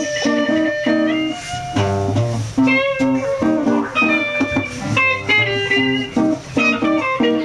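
Improvised instrumental music: a repeating pattern of short low notes under a higher, changing melody.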